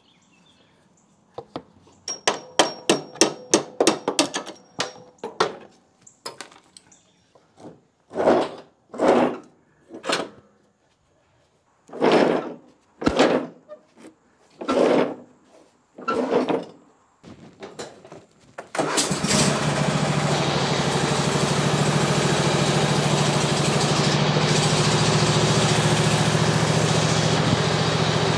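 A quick run of sharp metallic clicks and knocks, then a handful of separate louder scraping noises about a second apart. About two-thirds through, the Ariens lawn tractor's engine starts and runs steadily.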